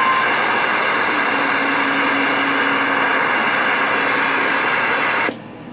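Loud, steady rushing static from a Galaxy CB radio's speaker, with a low steady tone in it for a couple of seconds. It cuts off abruptly with a click about five seconds in.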